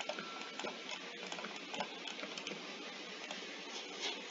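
A few scattered light computer mouse clicks over a steady background hiss.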